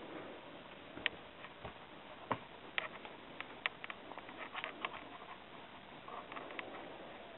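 Soft rustling with scattered sharp, irregular clicks as a hand scratches and tickles a small dog's belly fur.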